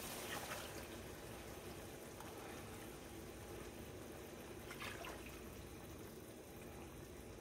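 Heavy cream pouring from a carton into a measuring cup, a faint liquid pour, with a couple of soft taps.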